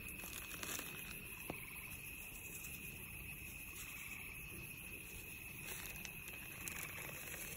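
Crickets chirring in a steady, unbroken high drone, with a few faint light taps.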